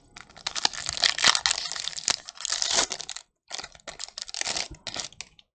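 Foil Pokémon booster pack wrapper crinkling and tearing as it is opened: dense crackling for about three seconds, a brief pause, then more crinkling.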